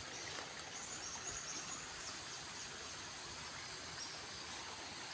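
Steady rush of a swollen, muddy river flowing past the bank, with a thin, steady, high insect drone over it.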